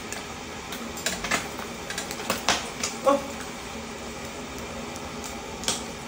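Luncheon meat slices frying in hot oil in a nonstick pan, a steady low sizzle, with sharp clicks of metal tongs against the pan and plate several times between about one and three seconds in and once more near the end.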